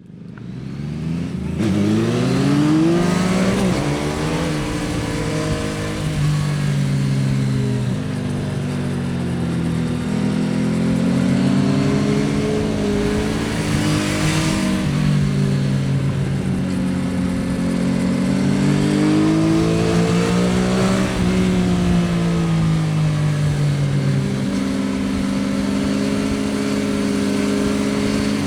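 Yamaha XSR900's inline-three engine pulling under load, its revs climbing sharply in the first few seconds and then rising and falling again and again through the gears. There is a short rush of noise about halfway through.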